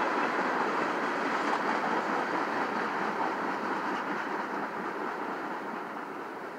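CSX freight train's tank cars rolling past, a steady noise of steel wheels on the rails that slowly grows quieter.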